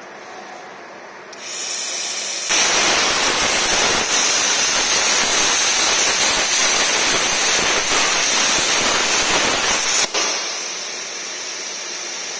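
CNC plasma cutter with a 200 A inverter power source cutting a circle out of metal plate: air starts hissing through the torch about a second in, the arc strikes about a second later with a loud, steady hiss that runs for about seven and a half seconds and cuts off suddenly. The air keeps hissing through the torch afterward to cool it.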